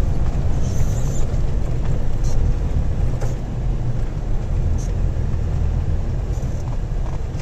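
Engine and tyre noise heard inside a vehicle's cabin while driving on a snow-covered road: a steady low rumble with a few faint short ticks.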